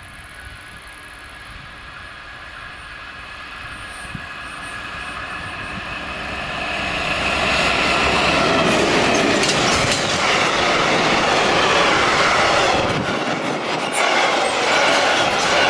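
Class 232 'Ludmilla' diesel-electric locomotive approaching and passing with a freight train, its engine growing steadily louder and peaking about eight seconds in. Then the freight wagons rumble and clatter past over the rail joints.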